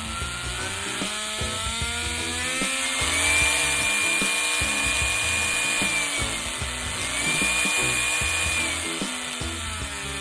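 Small mini rotary tool motor whining as its speed is changed: the pitch climbs over the first few seconds, holds high, dips briefly, climbs again and falls away near the end.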